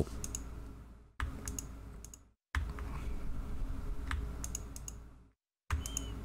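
Faint, scattered clicks of a computer keyboard and mouse being worked, over a low background hum that cuts out abruptly a few times.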